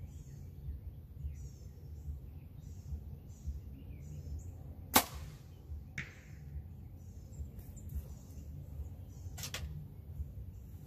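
Obsession Defcon HZ7 compound bow shot: one sharp crack of the string and limbs about halfway through, with a fainter click about a second later. Birds chirp throughout.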